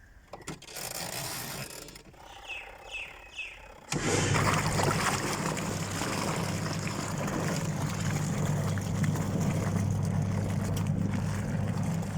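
Super Asia top-load washing machine starting its wash cycle about four seconds in: the motor hum sets in suddenly, with water and clothes churning steadily in the tub. Before it, a short rush of noise and three quick chirps.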